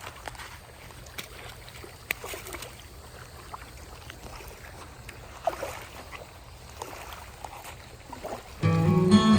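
Small knocks and light water sounds around a kayak on the water, over a steady low rumble. Near the end, guitar music cuts in loudly.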